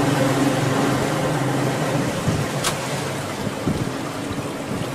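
A boat engine running with a steady drone that weakens about two seconds in, leaving a low rushing noise, with one sharp click near the middle.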